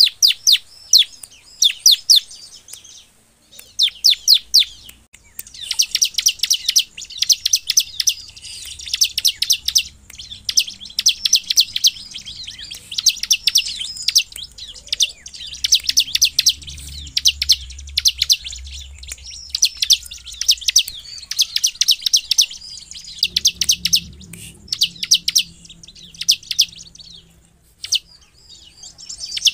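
Bar-winged prinia (ciblek) singing its fast, excited 'nembak' song: long runs of rapid, sharp high chips in phrases of about a second, separated by short pauses.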